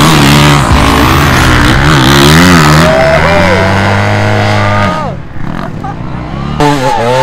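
Enduro dirt bike engines revving hard and unevenly under load on a steep, loose hill climb, the pitch rising and falling. The engine note drops away about five seconds in, and another bike revs up near the end.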